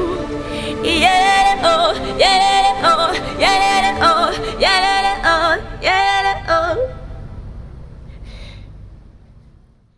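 The end of a song: a singer's short wordless phrases, each scooping up in pitch, over the backing music, then the track fades out to silence over the last few seconds.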